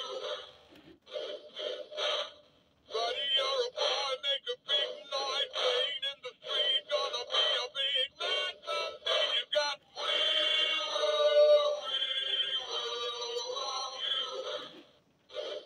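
Singing Honey Bass animatronic fish plaque playing its song through its built-in speaker: a male voice singing over a backing tune, thin with no bass, with a few short breaks between phrases.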